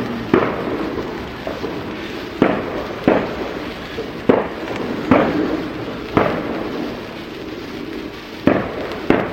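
Fireworks banging: about eight sharp bangs at irregular intervals, each trailing off in a rolling echo.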